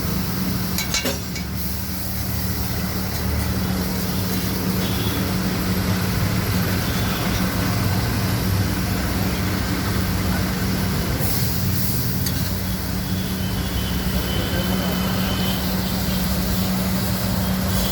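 Steady roadside noise of passing traffic under a constant low hum, with a few short clicks.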